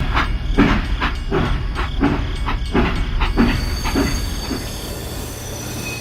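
A small machine running with a low rumble and a rhythmic clatter of about two to three knocks a second, the knocking fading out about four and a half seconds in.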